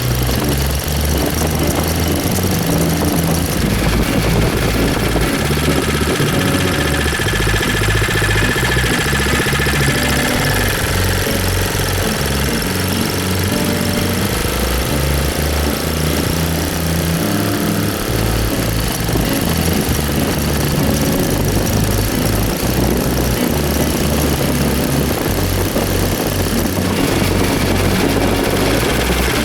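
A homemade motorized bike's 79cc engine running under way, its revs rising and falling, with background music with a steady bass beat.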